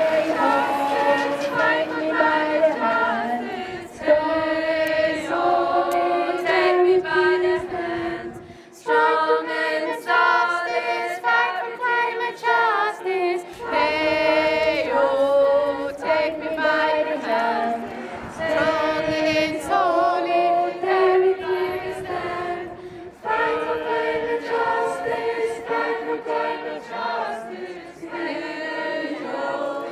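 Group of voices singing a protest song about solidarity and climate justice a cappella, in sustained phrases with short breaks between them.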